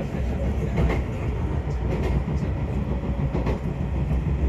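Izukyu Kurofune electric train running: a steady low rumble with a few clicks of the wheels over rail joints.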